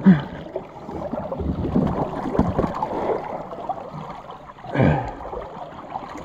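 River water sloshing and splashing around a gear-laden kayak as it is pushed under a low fallen log, with brief grunts of effort right at the start and again about five seconds in.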